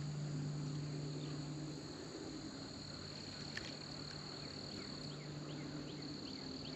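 Faint, steady high-pitched trilling of crickets or similar insects, with a low hum during the first couple of seconds.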